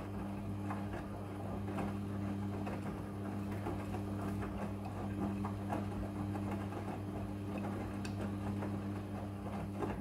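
Midea front-loading washing machine running a wash, its drum motor humming steadily as the drum tumbles a load of wet clothes, with irregular knocks from the load.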